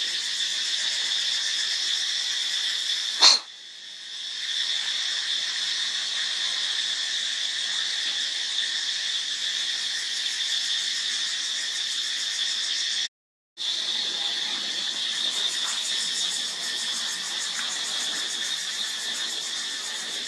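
Steady high-pitched insect chorus droning without a break. A single sharp click about three seconds in, and the sound cuts out completely for about half a second near the middle.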